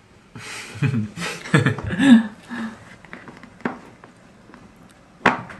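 A man's breathy laughter in short bursts, then quiet, with a faint click and a sharp tap about a second before the end.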